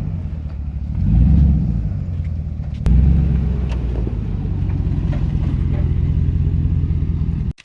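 V8 SUV engine running, swelling louder with throttle about a second in and again around three seconds. The sound cuts off abruptly near the end.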